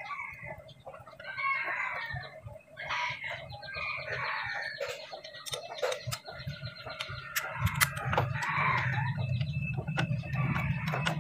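Chickens clucking and a rooster crowing, over scattered sharp metal clinks of hand tools on the truck's axle. A low steady hum comes in about two thirds of the way through.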